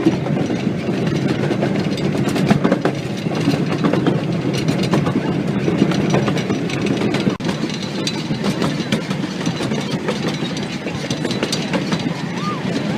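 Train rolling along the rails: a steady rumble with the clatter of wheels over the track.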